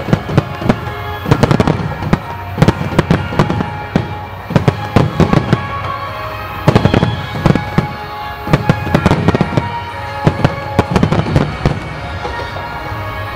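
Aerial firework shells bursting in quick clusters of sharp bangs, many a second at times, with music playing under them.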